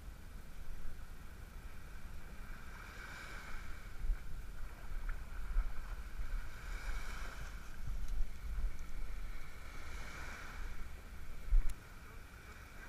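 Wind rumbling on the microphone over water washing in at the shore, swelling and easing about every three to four seconds. A single sharp click comes near the end.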